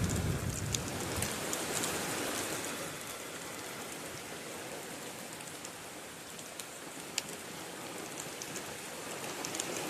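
Steady rain falling, with scattered sharp drop ticks. A low rumble fades out about a second in.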